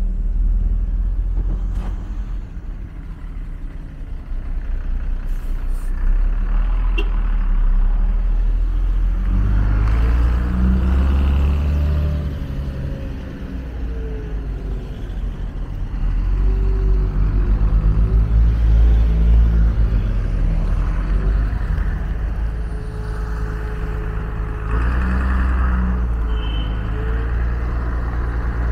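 Street traffic: cars and heavy vehicles passing with engines running, the sound swelling and easing as they go by.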